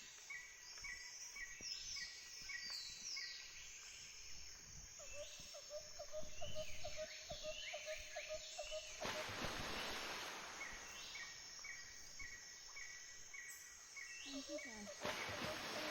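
Several birds calling outdoors: a run of short notes repeated evenly about twice a second, higher downward-sliding whistles, and a lower pulsing call that joins about five seconds in. A brief rush of noise runs through the middle.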